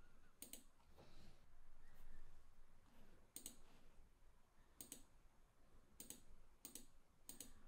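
Faint computer mouse clicks, about six spread out, several heard as a quick press-and-release pair.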